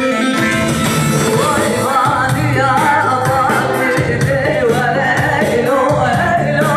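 A man singing a slow halay (ağır halay) folk song into a microphone over amplified backing music; his voice comes in about one and a half seconds in with a wavering, ornamented melody.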